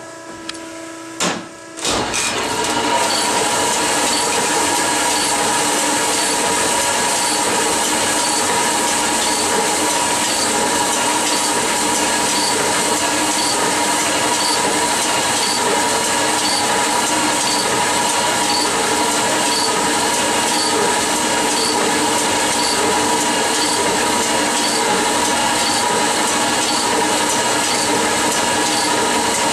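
Cylinder honing machine running its 220-grit stones in a Ford Model A engine block bore under a flood of honing oil: a steady grinding hiss with a high ringing whine and a faint regular tick, starting about two seconds in after a short knock. It is the final finishing pass, taking the last few thousandths of an inch out of the bore.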